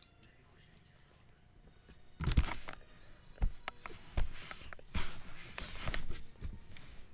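Handling noise from the recording device: after a couple of seconds of faint room tone, a series of irregular knocks and bumps with rubbing and rustling in between, about half a dozen, as the laptop is gripped and moved.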